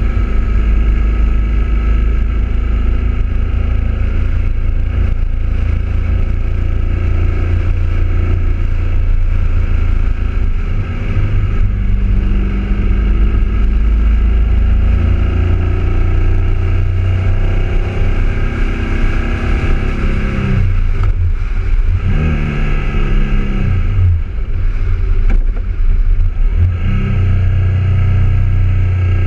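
BMW motorcycle engine running under way, heard from a camera mounted on the bike, with heavy wind rumble on the microphone. The engine note falls and climbs again a few times about two-thirds of the way through, as the rider eases off and accelerates through the bends.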